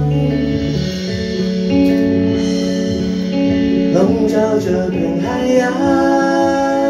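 A band playing live, electric guitar and electric bass holding long sustained notes, with a voice singing a line about four seconds in.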